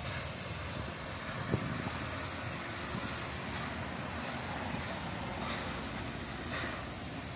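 Union Pacific 844, a 4-8-4 steam locomotive, heard from a distance as a steady rumble while it approaches under steam, with a thin steady high tone over it and a short knock about one and a half seconds in.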